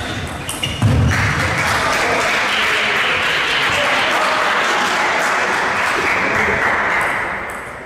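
Spectators applauding at the end of a table tennis rally: clapping that starts abruptly about a second in, holds steady, then fades away near the end.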